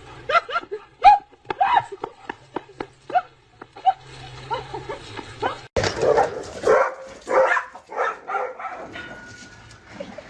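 A dog yipping and barking in many short, quick calls, then longer whining calls after an abrupt change about six seconds in.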